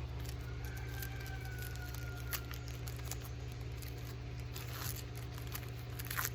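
Light rustling and crinkling of Pokémon trading cards and a foil booster-pack wrapper being handled, with a few soft clicks, over a steady low hum.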